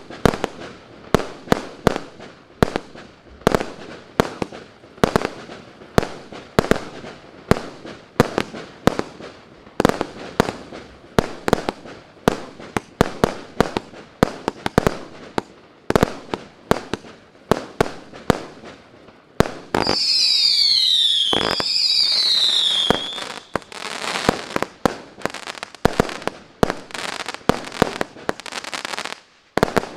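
A 300-shot consumer firework cake firing shot after shot, about two a second. About twenty seconds in, a few seconds of loud hissing with two falling whistles. Then a run of quick, dense bursts.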